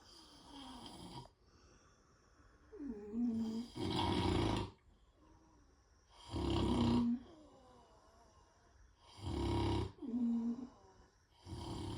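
Loud, rhythmic snoring: a rasping snore about every three seconds, with shorter pitched snorts between them.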